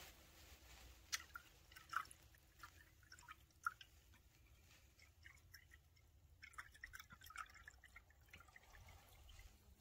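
Faint, scattered drips and light ticks of liquid into a glass beaker of green acid gold solution during the gold drop.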